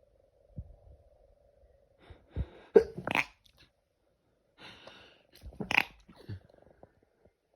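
A person sneezing twice, about three seconds apart, each sneeze led in by a drawn-in breath: an allergy sneezing fit.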